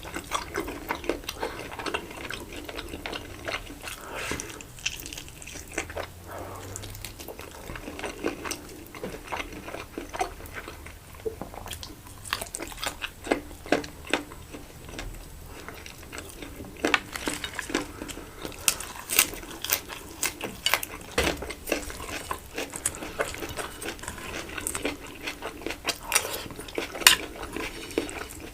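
Close-miked eating sounds: biting and chewing a meal of rice-stuffed chicken and salad, with irregular wet mouth clicks and smacks throughout.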